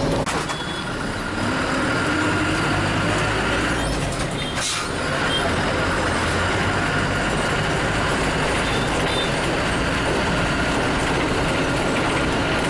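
Bus engine running steadily, heard from inside the passenger cabin, with a continuous low drone.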